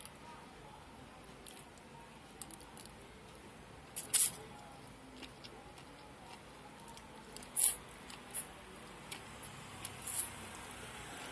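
Close-up mouth sounds of eating sea grapes: sharp wet clicks and smacks as the beads are bitten and chewed, the loudest about four seconds in and again past seven seconds, with a few smaller ones near the end.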